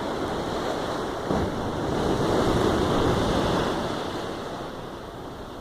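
Pacific Ocean surf: a wave builds, breaks and washes up, swelling to its loudest about halfway through and then fading, with some wind buffeting the microphone.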